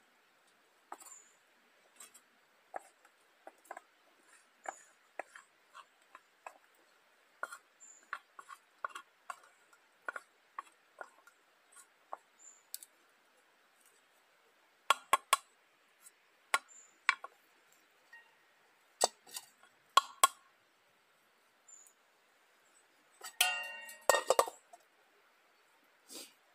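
Light taps and clicks of utensils against dishes, with a few sharper clinks in the second half and a brief clattering rattle with a ringing tone near the end.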